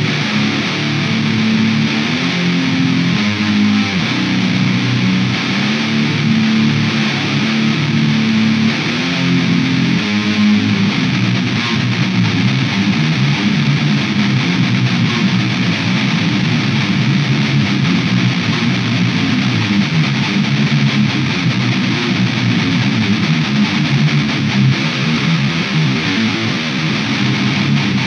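Distorted electric guitar playing heavy metal riffs in a rough demo recording, loud and unbroken.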